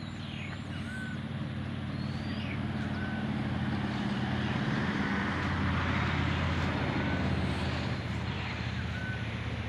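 A vehicle engine running low and steady, growing louder toward the middle and easing off near the end. A bird's short call repeats about every two seconds over it.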